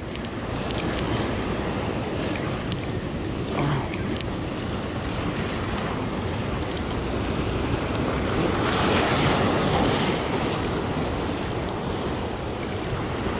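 Ocean surf breaking and washing over shoreline rocks, a steady rush that swells to a louder surge about nine seconds in, with wind buffeting the microphone.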